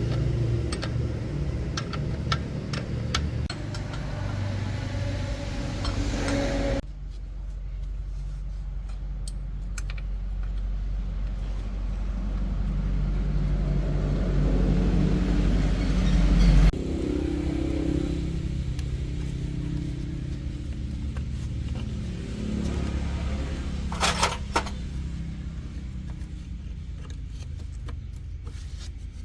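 Heavy-duty truck engine running with a steady low drone, growing louder in one stretch, broken by abrupt cuts. Metallic clicks in the first few seconds, and a short sharper noise near the end.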